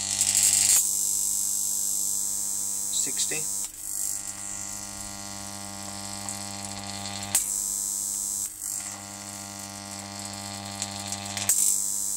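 High-voltage arc from an oil-immersed X-ray transformer, fed 40 volts through a variac and drawn across a spark gap. It gives a steady mains-frequency buzz with a hiss over it. It is crackliest in the first second, and the low hum weakens about seven seconds in.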